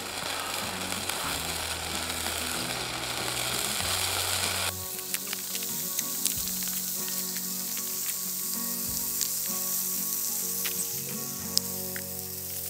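Diced potatoes frying in hot oil in a steel camp pan on a small fire stove: a steady sizzle that changes suddenly about five seconds in to a thinner crackle with scattered pops. Soft background music plays underneath.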